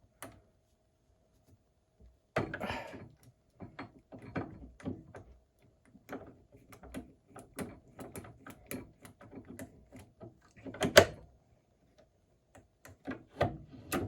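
Key blank being worked in an antique Corbin padlock to take impression marks from the pins: an irregular string of metallic clicks, scrapes and knocks starting about two seconds in, with one sharper knock about eleven seconds in.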